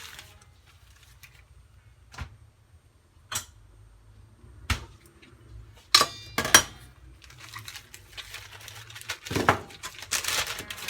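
Household handling noises: a few separate sharp knocks, then two loud ringing clinks like hard dishes or utensils striking, followed by a growing rustling, scraping noise near the end.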